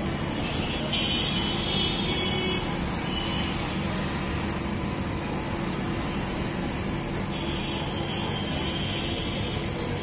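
Steady mechanical drone with a low hum and a constant high hiss, running without a break or any distinct knocks.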